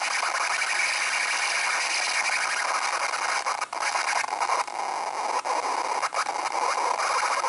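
Loud, continuous harsh screeching noise from a MacBook Pro's right speaker, even though the speakers are muted, with a few brief dropouts about halfway through.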